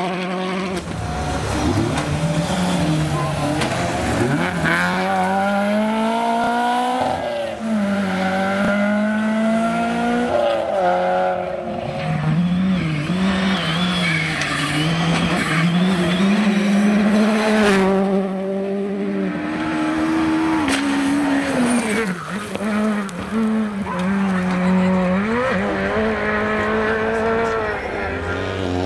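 Rally cars' engines revving hard on a gravel stage, the note rising and dropping sharply again and again through gear changes and lifts as one car after another passes.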